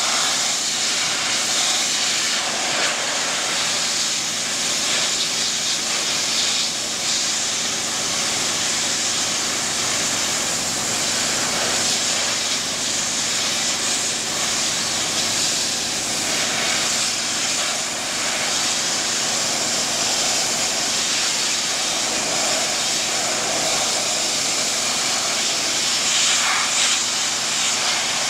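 Densin high-pressure washer's water jet spraying hard onto steel grating: a loud, steady hiss.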